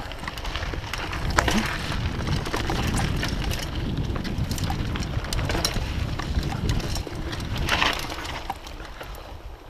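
Mountain bike riding over a dirt singletrack: a steady rumble of tyres on the trail and wind on the microphone, with frequent clicks and rattles from the bike over bumps.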